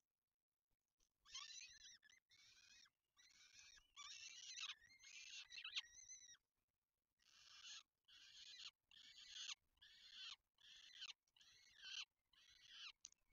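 Peregrine falcon chicks giving harsh, wheezy food-begging calls while being fed. The calls come about twice a second, each about half a second long, starting about a second in, with a brief pause partway through.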